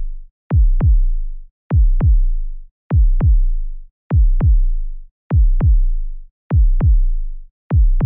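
Suspense sound effect: deep electronic bass-drum thumps in pairs, like a slow heartbeat, a double beat about every 1.2 seconds. Each thump starts sharp and drops quickly in pitch into a low bass tail.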